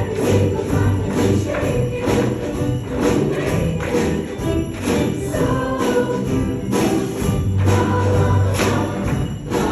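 Christmas music with sleigh bells jingling on a steady beat over held notes and a bass line.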